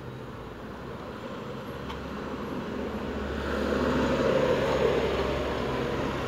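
An old cat purring loudly, a steady low rumble that grows louder about three seconds in.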